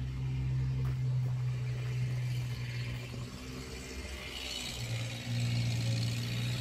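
Skid steer loader's engine running steadily, easing off about halfway through and picking up again about five seconds in.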